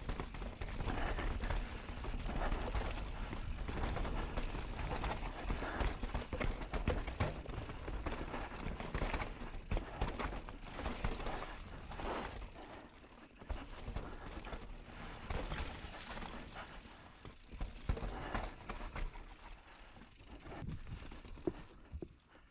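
Mountain bike rolling fast down a dirt and rock trail: tyres crunching over the ground, with the chain, frame and suspension rattling and knocking at each bump. The riding noise eases off in the second half.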